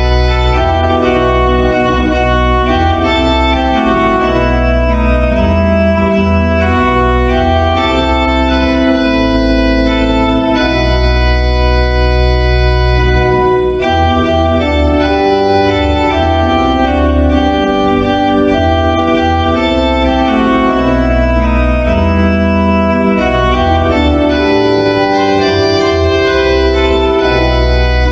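Organ music: slow, held chords over a deep pedal bass, the harmony changing every second or two.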